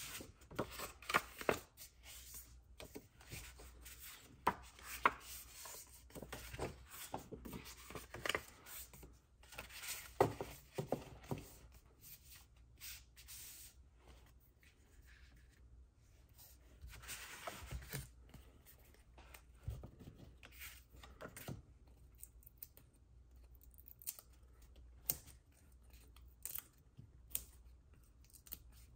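Card-making at a craft table: paper and cardstock being handled, cut and set down, with irregular clicks, taps and rustles. They come thickly for the first twelve seconds or so, then more sparsely.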